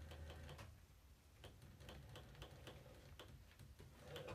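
Faint, evenly spaced mechanical ticking, about four ticks a second, over a low hum that fades out about half a second in.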